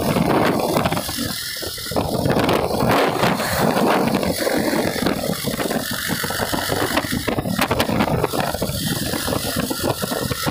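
Wind rushing over the microphone of a moving motorcycle, mixed with engine and road noise: a steady, loud rushing with brief dips.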